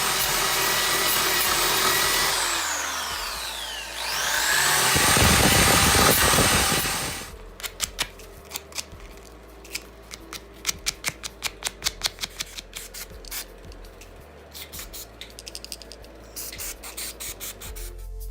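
Power tool running loud, its whine falling as it slows and rising again as it speeds back up. It then stops, followed by a long run of quick sharp clicks.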